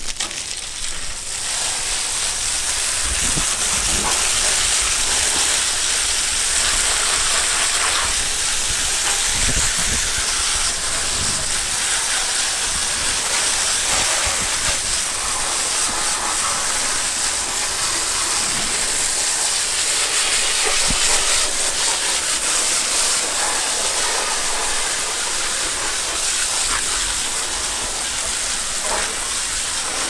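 Garden hose spraying water, its end partly covered by a thumb, onto an air conditioner condenser coil to wash it down: a steady hiss of spray spattering on the coil.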